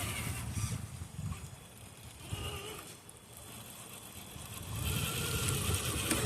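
Traxxas TRX-4 RC crawler's electric motor and geared drivetrain whining in spurts as it works over rocks. It is quieter through the middle and picks up again near the end.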